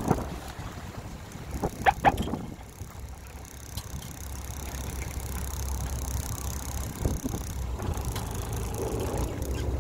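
Steady low rumble aboard a small fishing boat at sea, the boat's engine running under wind and water noise, with a few short sharp clicks about two seconds in and another near the end.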